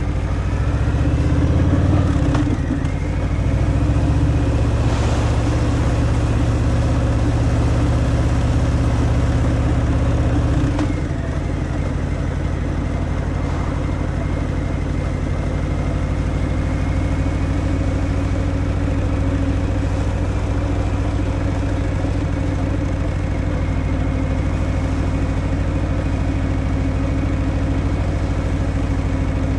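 Harley-Davidson Fat Boy's V-twin engine through its stock exhaust while riding, pulling harder for the first ten seconds or so with a short dip about two seconds in, then easing off to a lower, steady sound about eleven seconds in.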